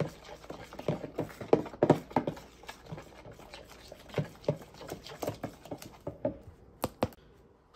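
Metal spoon stirring crepe batter in a plastic tub, making irregular clicks and scrapes against the container's sides and bottom. The stirring fades about six seconds in, with two last sharp taps shortly after.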